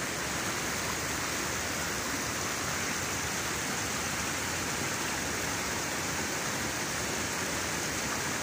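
Steady rush of fast-flowing floodwater, the flood still rising and getting stronger.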